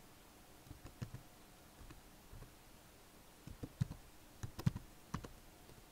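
Computer keyboard being typed on: faint, irregular key clicks that come in quicker bunches in the second half.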